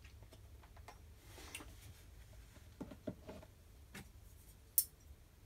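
Faint scattered ticks and light knocks of long metal tweezers and a plastic tub being handled, with one sharp click near the end.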